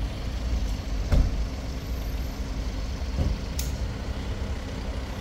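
A car engine idling steadily, with a car door shutting with a thump about a second in and a softer knock about three seconds in.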